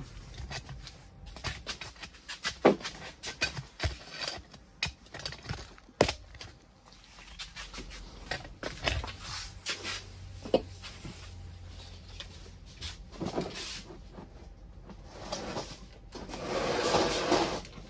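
Knocks and clatter from handling an electric scooter's tyred hub motor wheel and setting it down on a concrete floor, with one sharp knock about six seconds in and a longer rustling noise near the end.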